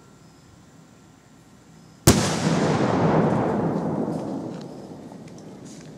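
A black-powder stick bomb explodes once, about two seconds in, with a sharp bang. A long rushing tail follows and fades over about three seconds as debris rains down.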